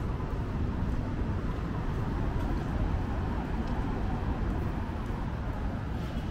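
Steady city street ambience: a constant low rumble of road traffic and urban background noise, with no single event standing out.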